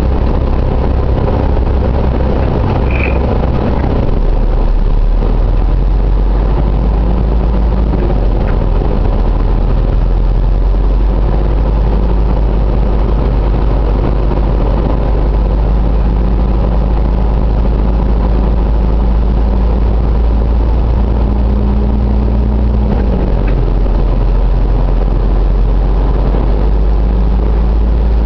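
Steady low rumble of a car's engine and road noise heard from inside the cabin, with an engine hum that shifts in pitch a few times as the car drives along.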